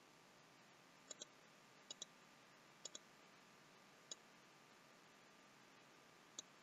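Computer mouse clicks over a faint background hiss: three quick double-clicks in the first few seconds, then two single clicks spaced a couple of seconds apart.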